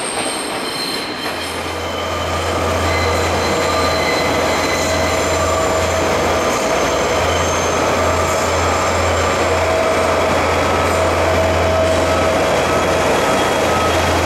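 Train running on rails, its wheels squealing in several steady high tones over rolling noise, with a deep hum coming in about a second in and the whole sound growing slightly louder.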